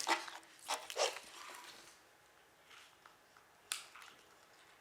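A few brief rustles and clicks of the Foley props, a balloon and a packet of lentils, being handled: three in the first second, then one more sharp click near the end.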